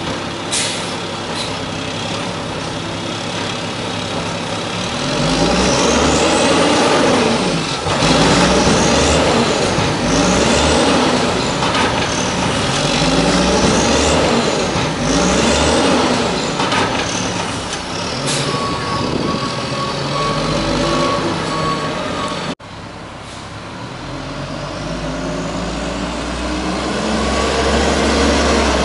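LNG-converted 1994 WhiteGMC WX-64 garbage truck engine running steadily, then revved over and over while the truck stands still, each rev rising and falling in pitch about every one and a half to two seconds. Near the end the engine builds up again as the truck drives along the street.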